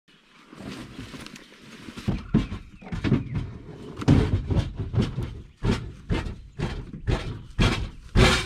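Camping gear being handled and packed: a string of irregular knocks and thumps, the loudest near the end.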